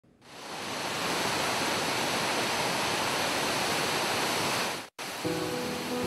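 Steady rushing roar of a tall waterfall, about 100 m high, that fades in at the start and cuts off abruptly just before five seconds in. Background music with held notes starts right after the cut.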